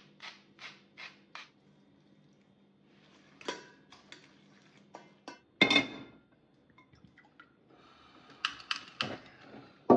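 A spoon mixing shredded cabbage salad in a stainless steel bowl: a quick run of five short strokes at the start, then scraping clicks. About halfway through, a loud knock of the spoon against the bowl rings out, and more ringing metallic clinks come near the end.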